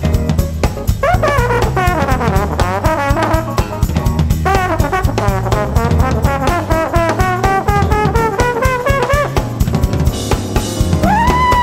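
Live jazz band with a trombone playing a solo line of sliding, bending phrases over drum kit and bass. The trombone rises into a long held high note near the end.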